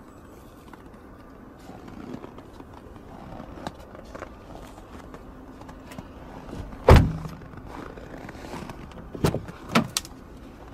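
Opel Antara car door being shut: one heavy thump about seven seconds in, then two sharper knocks about half a second apart near the end.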